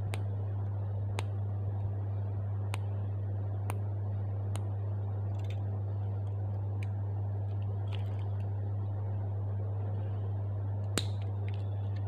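Nail clippers snipping toenails: a series of sharp, separate clicks spaced irregularly about a second apart, the loudest near the end. Under them runs a steady low hum.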